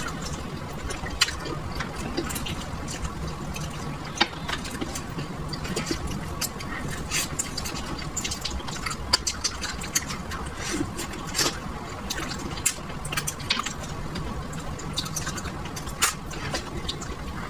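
Close-up wet chewing and sucking on braised duck head, with many small irregular smacks and clicks of lips and tongue.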